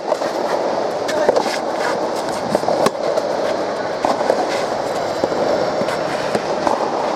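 Soft tennis rally: the soft rubber ball pops off the rackets and bounces on the clay court in a series of sharp clicks, over steady background noise.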